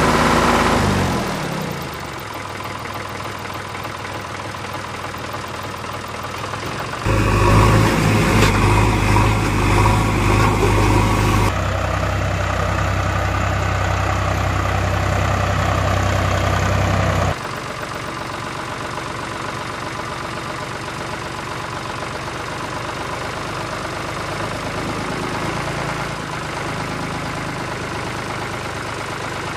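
Truck engine sound effects laid over the toy footage: an engine winding down in pitch during the first two seconds, then steady running. It cuts abruptly to a louder, deeper run about seven seconds in and back to a quieter run after about seventeen seconds.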